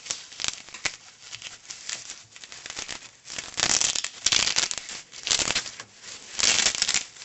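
Velcro on a wheelchair foot strap being peeled apart in several rasping rips. The three loudest come about three and a half, five and six and a half seconds in, with lighter scratchy strokes before them.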